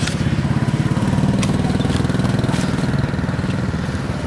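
Small engine running at a steady speed, with a fast, even throb.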